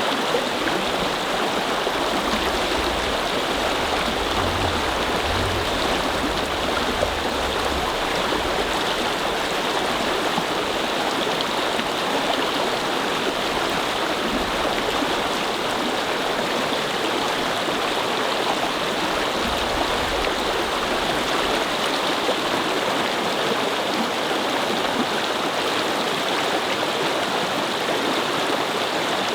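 A small brook flowing, a steady babbling of running water.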